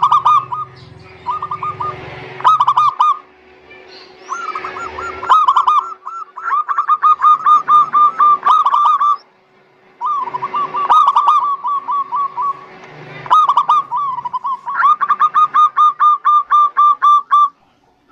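Zebra doves (perkutut) cooing in runs of quick, evenly repeated notes, about six a second, in several stretches that cut off and restart abruptly. A faint steady hum lies under parts of it.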